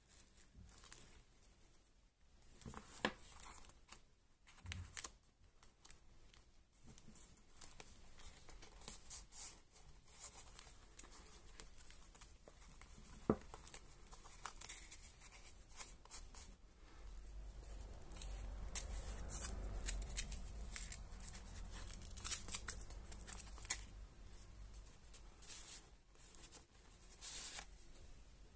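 Paper pages and tucked ephemera of a handmade junk journal rustling and crinkling faintly as they are turned and handled, with one sharp tick about thirteen seconds in and a low rumble partway through.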